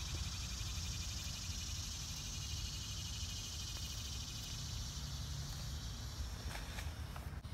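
Steady chorus of insects, a fast, even pulsing trill with a hiss above it, with a few soft clicks near the end.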